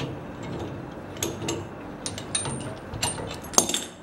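Irregular small clicks and light clatter of a hand-worked mechanism, ratchet-like, with one louder click near the end.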